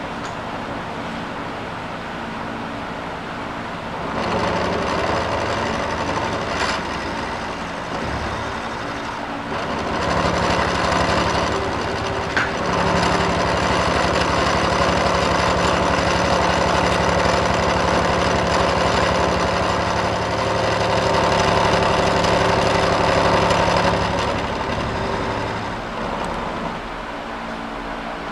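Milling machine spindle running with a multi-flute chamfering tool cutting a chamfer into a metal plate. The cutting noise comes in about four seconds in and eases for a moment around eight seconds. It then goes on, louder and steady, from about ten seconds until shortly before the end, when only the spindle hum is left.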